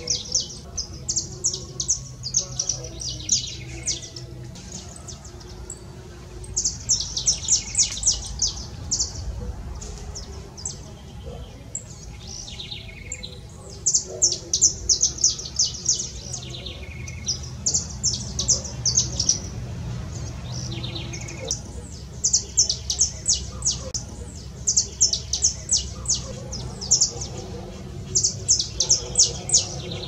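A small songbird singing: repeated short phrases of fast, high chips, each phrase a second or two long with brief pauses between. A steady low rumble sits underneath.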